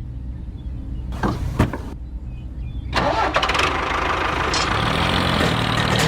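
Small engine running with a steady low hum and two sharp clicks, then running louder and fuller from about halfway through.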